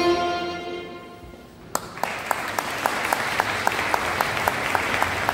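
A folk band's last chord, accordion and fiddle, held and fading away over the first second and a half. Then a single sharp knock, and the audience breaks into applause, clapping in a steady rhythm of about four claps a second.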